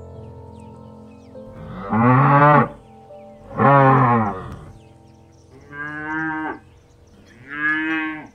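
Cattle mooing: four short calls, the first two louder than the last two, over soft background music.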